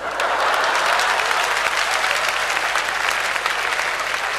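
Audience applauding: dense, steady clapping that sets in right after the punchline and eases off slightly near the end.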